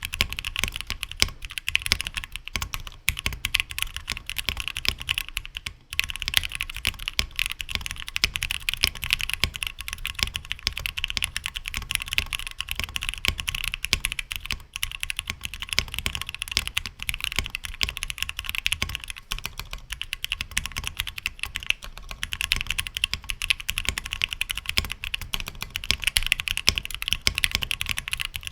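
Continuous fast typing on a custom 60% mechanical keyboard: a Tofu60 case, O-ring gasket-mounted, with a 3D-printed PLA plate, lubed and filmed Gateron Black Ink linear switches and PBT keycaps. The keystrokes make a dense, even clacking, with a brief pause about six seconds in.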